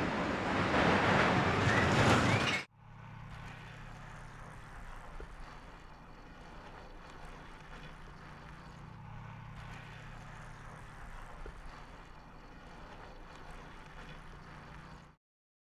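Roller coaster train running along its steel track, loud, cutting off abruptly about two and a half seconds in. Then a much fainter steady outdoor background with a low hum, which stops suddenly near the end.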